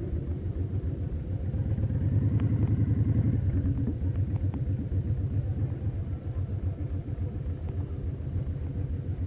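Victory Vegas Jackpot's V-twin engine running under way, a low, fast pulsing rumble that swells briefly about two seconds in.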